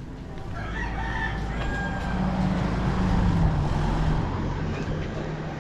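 A rooster crowing over the steady low drone of a motor vehicle engine, whose pitch drops slightly partway through.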